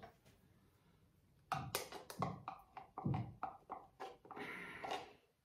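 Light handling of a small spice container over the pan: a run of irregular clicks and taps, a few a second, then a short rasp near the end.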